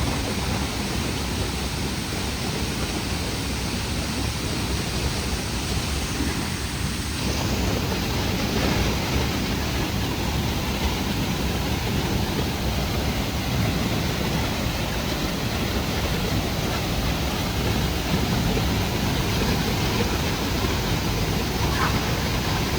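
Steady rushing roar of a waterfall pouring into its pool; the sound turns a little brighter about seven seconds in.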